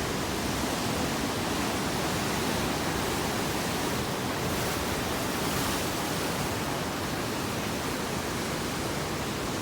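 Steady rushing wash of ocean surf breaking along the shore, an even, constant noise with no distinct wave crashes standing out.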